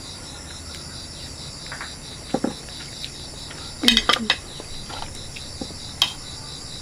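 Crickets chirring steadily in a pulsing high band, with a few sharp clinks of chopsticks and bowls during a meal; the loudest cluster of clinks comes about four seconds in.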